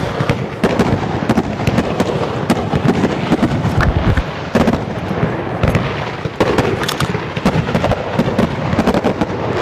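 Fireworks display going off: a dense, continuous barrage of bangs and crackling reports, many per second.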